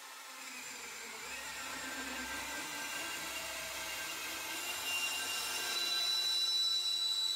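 Drill-powered homemade bandsaw cutting through a rectangular steel tube: the steady whine of the cordless drill and running blade over the hiss of the cut, growing gradually louder. A thin high tone joins about six seconds in and strengthens.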